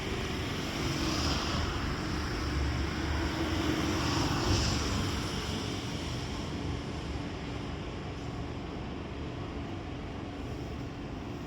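An ambulance's engine running steadily with a low hum before it sets off on an emergency call.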